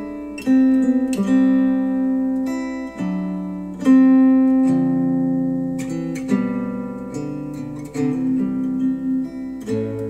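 Acoustic guitar music played back through Wharfedale Denton 80th bookshelf speakers driven by a NAD C 368 integrated amplifier. Plucked notes and chords start every second or two, and each rings out and fades.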